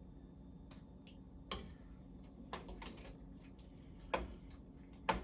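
Light clicks and knocks of a utensil in a pot of stew, about six of them spaced irregularly, over a steady low hum.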